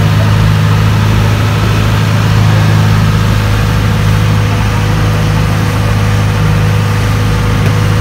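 Inboard engine of a motorized outrigger boat (bangka) running steadily under way: a loud, even drone, with a hiss of water spray and wind over it.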